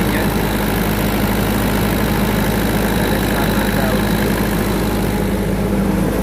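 Diesel engine of a 50 kVA generator set running at steady speed, a constant even hum.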